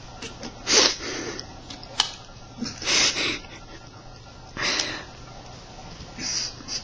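A person near the microphone gives four breathy snorts through the nose, spaced a second or two apart, with one sharp click about two seconds in.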